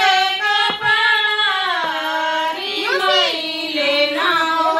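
A high voice singing a melody in long held notes, with a slide down in pitch about two seconds in and quick turns in the line a second later.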